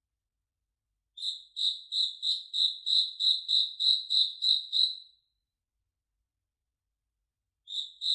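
Cricket chirping: a run of about a dozen evenly spaced high chirps, about three a second, starting a second in and stopping about five seconds in. After a silent gap the chirping starts again near the end.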